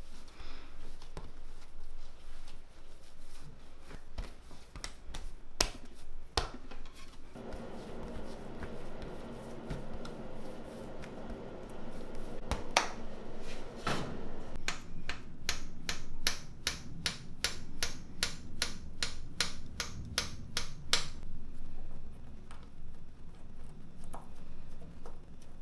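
Hands working crumbly egg-tart pastry dough on a countertop: soft pats, presses and knocks. Past the middle comes a run of quick, even clicks, about three or four a second, lasting several seconds.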